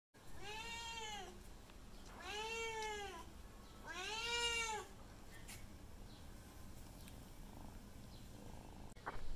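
Mother cat meowing three times, each meow about a second long, rising then falling in pitch.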